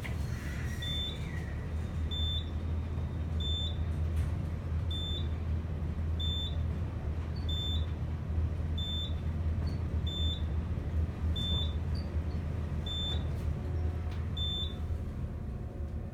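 Modernized Payne overhead-drive traction elevator travelling up, heard from inside the car: a steady low hum of the car in motion, with a short high electronic beep about every 1.3 seconds, about a dozen in all, the floor-passing tone sounding as the car passes each floor.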